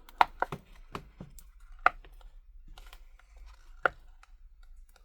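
Sharp clicks and snaps as a plastic pry card is worked under the cracked front glass of a tablet, cutting through the adhesive. Three louder snaps, near the start, about two seconds in and near four seconds, stand out among fainter clicks.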